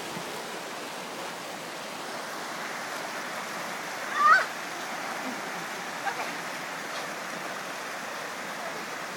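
Steady rush of a rocky mountain stream flowing over boulders. About four seconds in, a person gives one short, high, rising cry.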